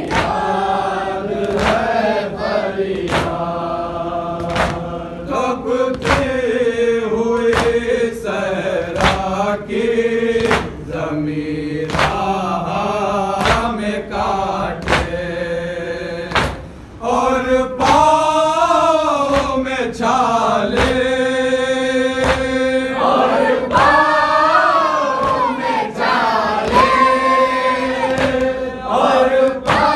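Men's voices chanting a noha (Shia mourning lament) together in long, drawn-out lines. A steady beat of sharp slaps runs under the chant: hand matam, the mourners striking their chests in time.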